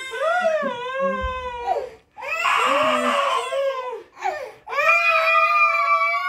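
A person crying loudly in long, high, wavering wails, three drawn-out cries with brief breaks for breath about two seconds and four and a half seconds in.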